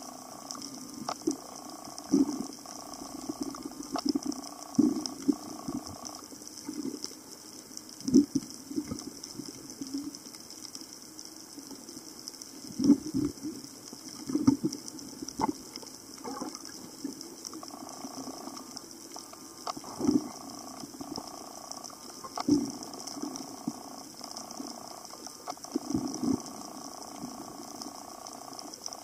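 Underwater sound picked up through an action camera's waterproof housing: a steady hiss with irregular low knocks and pops, and a faint wavering hum that drops out for a stretch in the middle.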